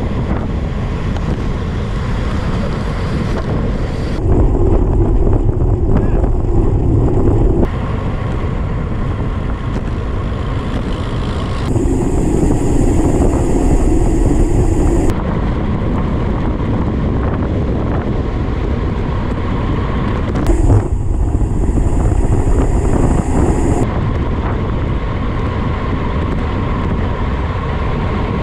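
Wind buffeting the microphone of a bike-mounted camera on a fast road-bike descent, a loud, steady rumble. Its tone shifts abruptly several times.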